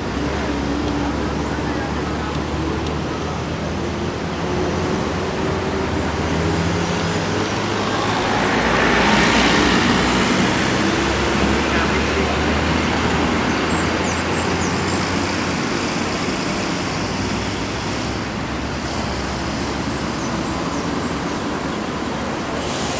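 Diesel buses and other heavy vehicles running in steady road traffic. One engine's pitch rises slowly over the first several seconds, and a vehicle passes close about nine seconds in.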